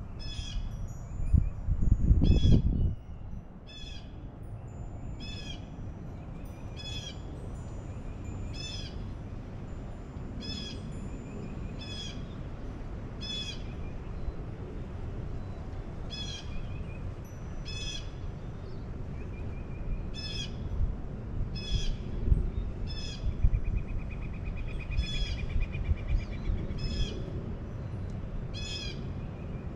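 A bird calling over and over, one short harsh note about every second and a half, with a steady trill from another bird about two-thirds of the way through. A brief loud low rumble about two seconds in.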